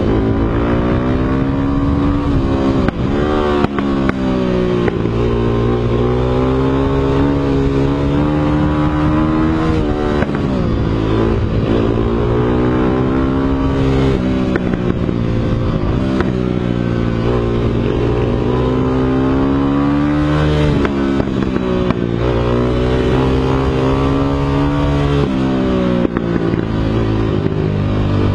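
Dirt bike engine running at speed, its pitch climbing and then dropping back again and again every few seconds as the throttle is opened and eased.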